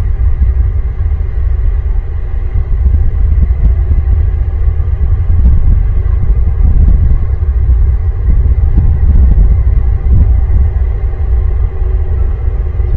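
Wind buffeting the microphone: a steady, loud low rumble with no pauses.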